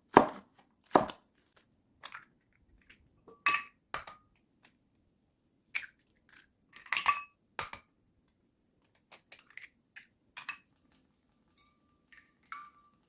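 Two knife chops on a cutting board in the first second, then scattered taps and clinks of kitchen utensils and dishes being handled, a few of them ringing briefly.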